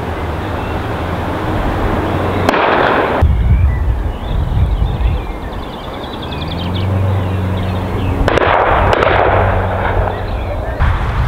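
A steady low engine drone, its pitch rising about two-thirds of the way through, with two louder rushing bursts of noise: a short one a few seconds in and a longer one near the end.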